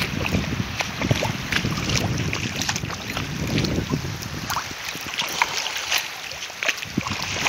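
Small waves lapping and splashing in shallow water at the shore, with many short splashes and wind buffeting the microphone in gusts, strongest in the first half.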